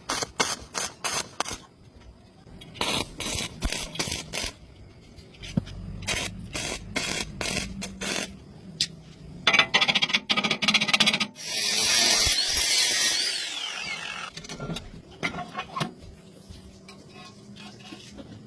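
Metalwork on steel door hinges: groups of short, sharp crackles and knocks, a dense run of them about ten seconds in, then about two seconds of steady high hiss.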